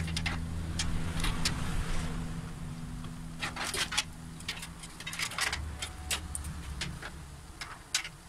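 Power supply cables and their plastic connectors clicking and rattling as they are handled and pushed into place inside a steel PC case, in a string of short irregular clicks. A low steady hum runs under the first half.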